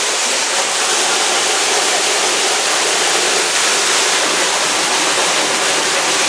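Steady, loud rush of water from the flash flood, an even hiss without breaks.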